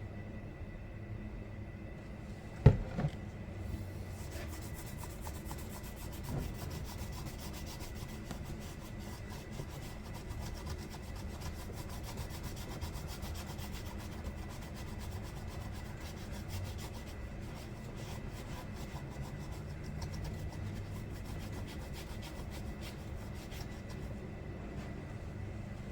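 A single sharp knock, then steady rapid scrubbing against a chainsaw's body as pitch and grime are cleaned off it.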